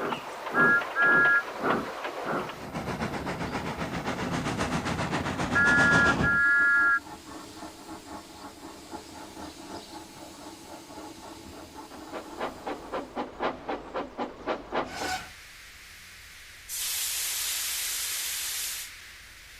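Steam locomotive sound effects: rhythmic chuffing with two short toots of a two-note whistle, then a longer whistle blast. The chuffing drops quieter and later quickens, and near the end there is a steady hiss of escaping steam lasting about two seconds.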